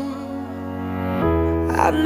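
Soft, slow background music: sustained held notes over a low bass tone, with a new chord coming in just over a second in and a melody starting near the end.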